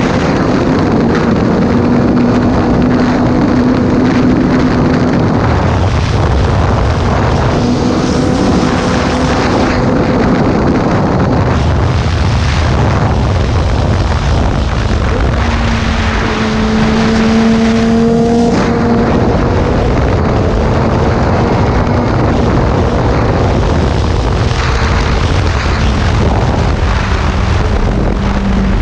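Sport motorcycle's engine running at high road speed, under heavy rushing wind and road noise. The engine note holds steady, fades back about five seconds in, and comes up stronger about sixteen seconds in, with a brief break near eighteen seconds, as the throttle changes.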